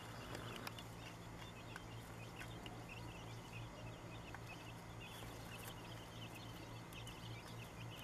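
Faint, scattered peeping of a brood of newly hatched chicks, over a steady low hum.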